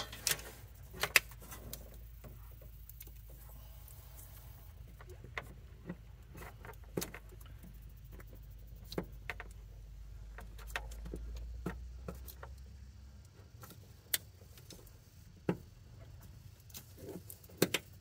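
Scattered clicks and knocks of gloved hands working the new accelerator cable's plastic fitting and the wiring around it, with a pair of sharp clicks near the end as the fitting snaps into the firewall.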